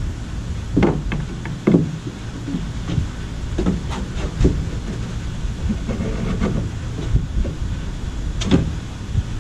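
Wooden canoe yoke knocking against the canoe's gunwales and hull as it is set in place for a test fit: several separate knocks, over a steady low rumble.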